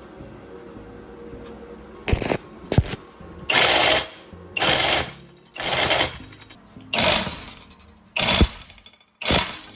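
A handheld power tool run in short bursts, about one a second, after two sharp knocks, over background music.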